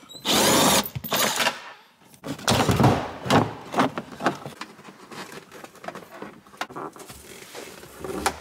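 Plastic interior pillar trim and wiring being handled: scraping and rustling, loudest in the first second and again a couple of seconds in, then quieter scattered small clicks.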